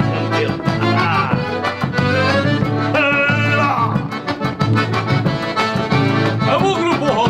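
Instrumental break of a gaúcho vaneira: accordion playing the melody over bass and a steady, driving dance beat.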